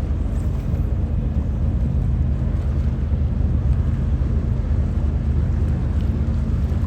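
A large engine running steadily, a constant low drone, with a rushing noise over it.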